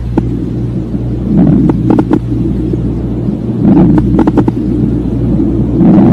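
Lung sounds heard through a stethoscope: breath sounds swelling about every two seconds, each with a few short clicks, over a steady low hum.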